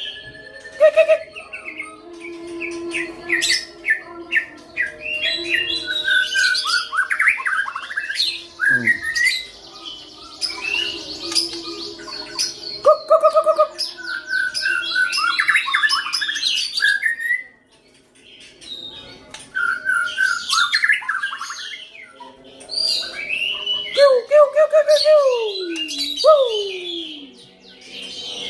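Caged competition songbird singing strongly, a varied, rapid string of chirps, trills and sliding whistles, with a brief pause about two-thirds of the way in. The song is full of power, the sign of a bird in competition form.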